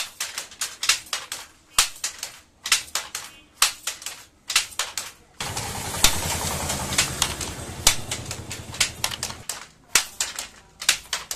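Wooden handloom clacking in quick groups of two or three strokes about once a second as the shuttle is thrown and the beater struck. From about five seconds in to about nine and a half seconds a louder rushing noise with a low rumble lies under the clacks.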